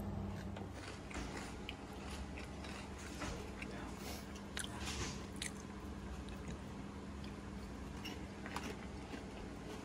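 A person chewing and eating food, with soft, irregular mouth clicks and smacks over a steady low hum.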